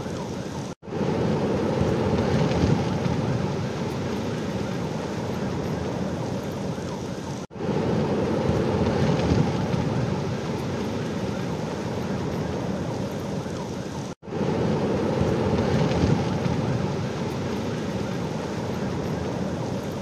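Steady rushing noise of wind and a moving vehicle on a phone microphone, driving through a burning forest. It drops out for an instant three times, about every seven seconds.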